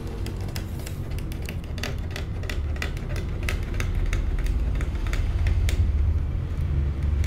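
Aari hook needle punching through fabric stretched taut on an embroidery frame as gold kasab thread is stitched: a run of sharp, irregular clicks, about two or three a second, over a steady low rumble.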